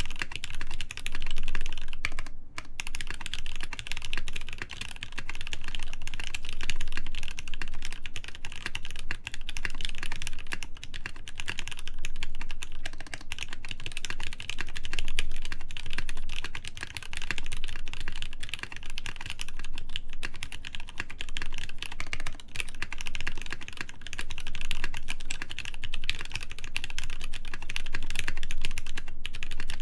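Continuous fast typing on a Hineybush Ladybird mechanical keyboard: lubed Gateron Ink linear switches on an FR4 plate, with blank PBT keycaps, giving a dense run of keystroke clacks. The typing pauses briefly about two seconds in and again near the end.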